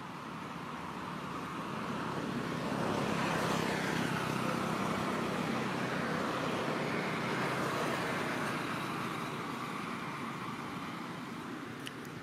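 A motor vehicle passing by: its noise builds over a few seconds, falls in pitch as it goes past, then fades away.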